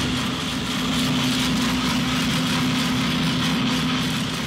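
Drum coffee roaster running mid-roast: a steady mechanical hum with a constant low tone and a hiss of air over it.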